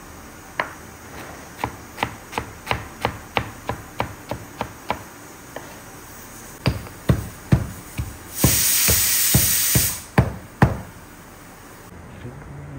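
Chef's knife chopping ginger on a wooden cutting board: quick knocks about three a second, then a few heavier chops. Partway through the heavier chops, a loud hiss lasts a little under two seconds and then cuts off.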